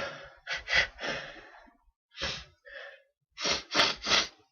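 A man's sharp, breathy gasps and huffs in quick groups: the catching breaths of a sneezing fit, with three fast loud ones near the end.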